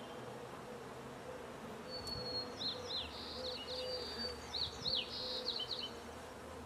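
Steady buzzing of a honeybee colony around an open hive being installed. From about two seconds in to about six seconds, a quick series of high chirps with downward-sliding notes sounds over the buzzing.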